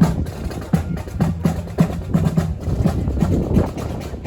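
Marching band playing, led by drums: sharp strikes on a steady beat of about three a second over a low sustained bass.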